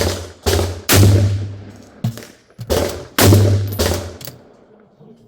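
A string of gunshots: three sharp cracks in quick succession, a lighter one about two seconds in, then three more, each trailing off in echo. The shots come too close together for one bolt-action rifle.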